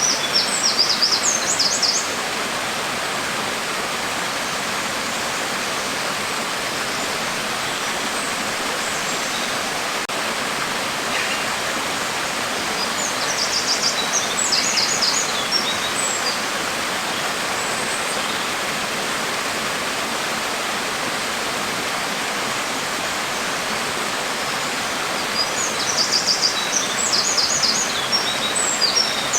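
Steady hiss of falling rain. Birds chirp over it in three short bouts of quick, high notes: at the start, around the middle and near the end.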